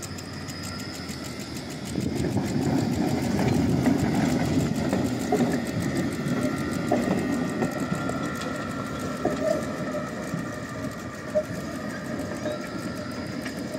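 Articulated low-floor tram passing close by and curving away. Its wheels rumble on the rails, loudest a couple of seconds in and then easing, under a steady high whine and a few sharp clicks from the track.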